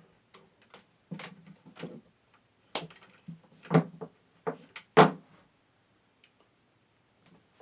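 Handling noises from a vintage table fan and its power cord being moved about: a scattered series of light knocks and clicks, the loudest a thump about five seconds in.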